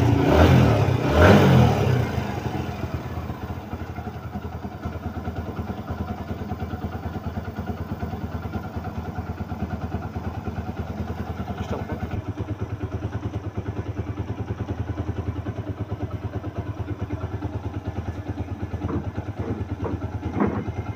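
TVS Stryker 125's single-cylinder four-stroke engine, freshly rebuilt with a new piston and rings, blipped twice in the first two seconds and then settling to a steady, evenly pulsing idle.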